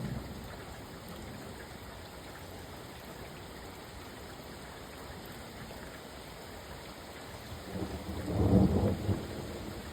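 Steady rain with thunder; a louder rumble of thunder swells up about eight seconds in and dies back within a second or two.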